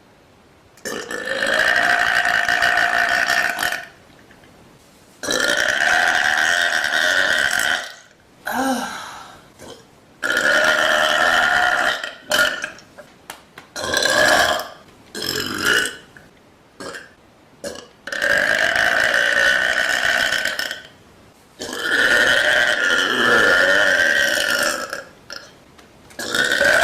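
A woman burping over and over: long drawn-out belches of two to three seconds each, with a few short burps between them and brief pauses.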